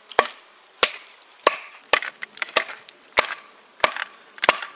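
Batoning: a wooden baton striking the spine of a TOPS Tom Brown Tracker knife to drive it down through a small log. There are about eight sharp knocks at a steady pace, roughly one every two-thirds of a second, as the thick blade wedges the wood apart.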